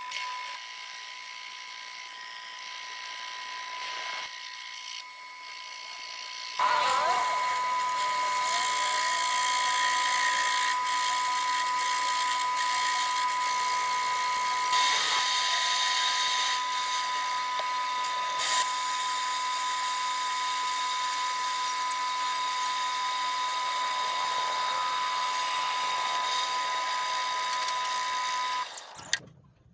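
Metal lathe turning a metal bar, its cutting tool taking a cut: a steady high whine over the machine's hum. It gets louder about six and a half seconds in and cuts off abruptly near the end.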